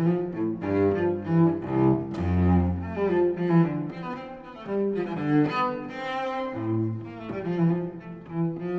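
Instrumental background music: a melody of held notes that change every half second or so, over a low line.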